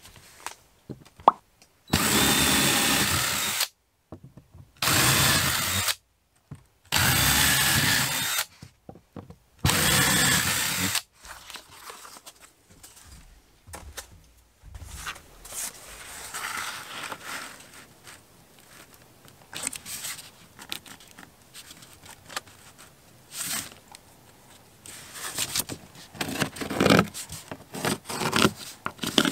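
Cordless drill running in four short bursts of a second or so each, about two seconds apart, drilling at the wall. After these, fainter irregular knocks and scrapes.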